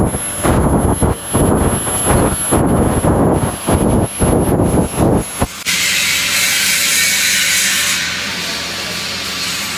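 Loud, uneven rushing noise in short pulses for about five and a half seconds, then a sudden switch to a steady high hiss with a faint low hum, typical of a TIG welding arc burning.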